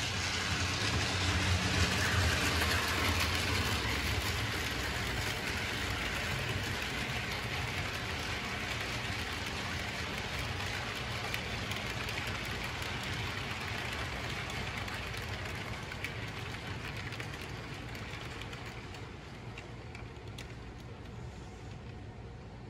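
HO scale model passenger train of heavyweight cars rolling along the track: a steady rolling rumble of small metal wheels on rail. It is loudest a few seconds in and fades gradually as the train moves away.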